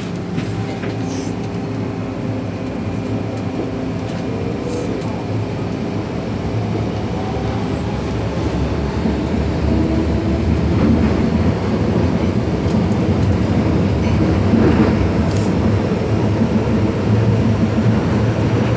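MTR Kwun Tong Line M-train pulling out of a station, heard from inside a passenger car: a steady electric hum with faint rising whines from the traction motors, growing louder through the first half as the train picks up speed and its running noise builds.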